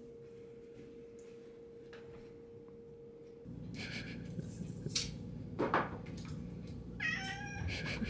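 A domestic cat gives one short, high meow near the end, over low room noise and a few soft handling knocks. A faint steady hum is heard before that.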